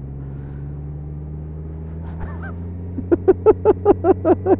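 Steady drone of a motorcycle engine and road noise. About three seconds in, a quick run of about ten short, pitched 'ha' sounds, which is laughter.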